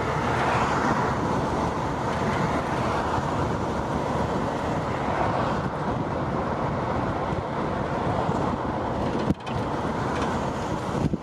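Steady rushing noise of road traffic, with wind on the microphone. The sound cuts out briefly about nine seconds in.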